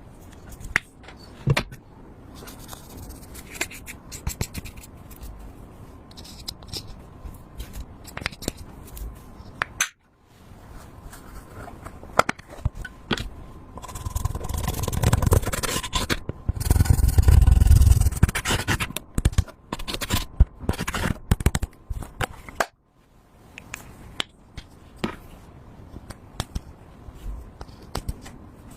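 Slime being stirred and mixed by hand: scraping with many short sticky clicks, louder for a few seconds in the middle, and broken off abruptly twice.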